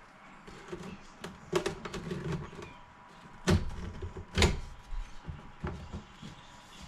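Plate amplifier being worked into the cutout in a subwoofer enclosure: scraping and rubbing as it slides in, then two loud knocks about a second apart and a few lighter taps as it seats snugly.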